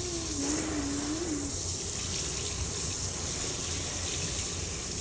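Water running steadily from a tap into a tub or sink. A short, faint wavering tone sounds over it in the first second and a half.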